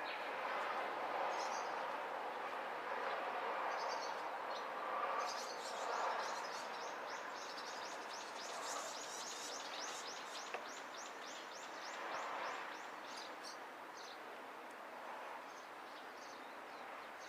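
Outdoor ambience: a steady background hiss with a few swells. A small bird sings a fast, high trill of repeated notes, about four a second, from about five seconds in until near the end.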